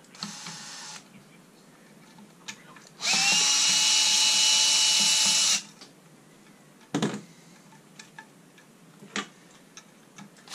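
Green Bosch cordless screwdriver backing out screws from a cooler assembly. A short, quieter run comes near the start, then a loud steady motor whine of about two and a half seconds, rising briefly as it spins up. A few light clicks of handling fall between the runs.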